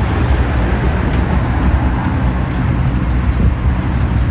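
Land train rumbling steadily along the road, heard from aboard: a continuous low engine and road rumble with no distinct events.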